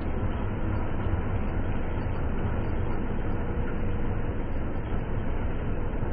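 Karma 930 combine harvester running, its engine and belt-driven threshing machinery making a steady, heavy drone.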